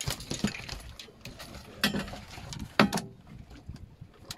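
Irregular sharp knocks and ticks on a small fishing boat, the two loudest about two and three seconds in, over a faint steady hiss of wind and water.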